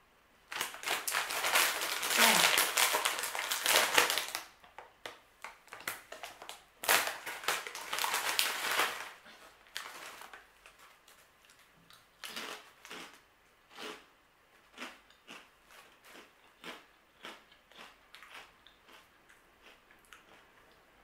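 Plastic snack bag of baked crisps being torn open and crinkled, with a second loud rustle of a hand rummaging inside it. This is followed by a string of short crunches as a crisp is bitten and chewed, fading over about ten seconds.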